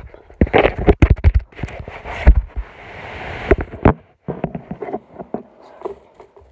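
Handling noise of a phone and earbud microphone being moved about: a run of sharp knocks and thumps with rustling between them, a longer rubbing hiss of fabric against the microphone just before the middle, then softer rustles.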